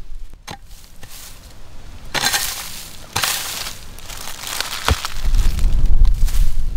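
A metal blade digging into dry soil: a sharp click about half a second in, then bursts of scraping and crunching as clods of earth are broken up, another sharp knock near 5 s, and a heavy low rumble near the end.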